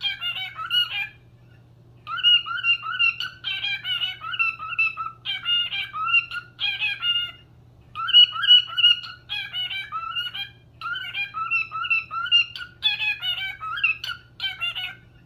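Pet bird, most likely a parrot, chirping and chattering in fast runs of short, pitch-bending notes, with brief pauses about a second in and about halfway through. A faint steady low hum lies underneath.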